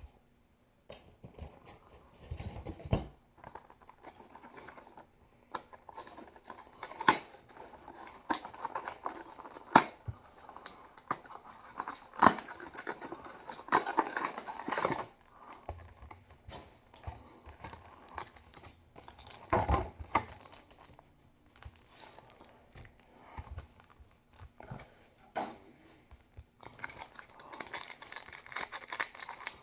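Foil trading-card booster packs being torn open and crinkled, with intermittent rustles and clicks as the wrappers and cards are handled.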